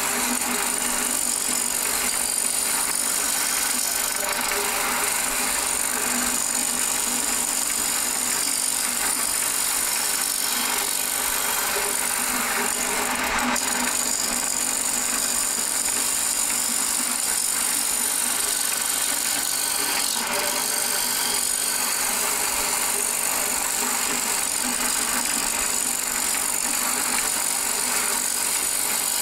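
Wood lathe spinning a glued-up stacked-wood bowl blank while a turning tool cuts into it, a steady scraping hiss of shavings coming off over a steady high whine.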